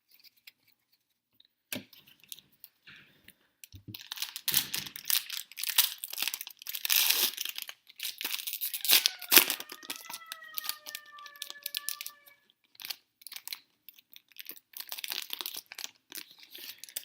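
Foil trading-card pack wrapper being torn open and crinkled in handling, in dense runs of tearing and crackling from about four seconds in. About nine seconds in, a drawn-out pitched sound, sliding slightly down, runs for about three seconds underneath.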